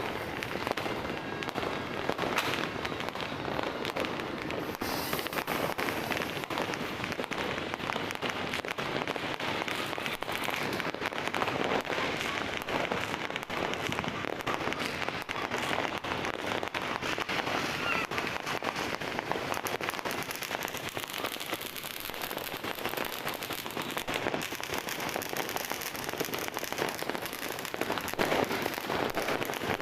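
Many firecrackers and fireworks going off at once in a dense, continuous crackle of small pops, with no single bang standing out.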